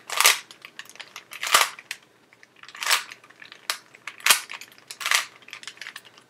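Rubik's cube being scrambled by hand: its plastic faces clack sharply with each turn, in irregular bursts roughly a second apart.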